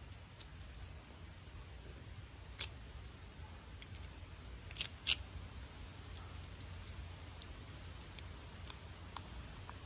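Scattered sharp metallic clicks as a key is turned in a Weigh Safe trailer coupler lock and its parts are fitted together. The loudest is a pair of clicks about five seconds in.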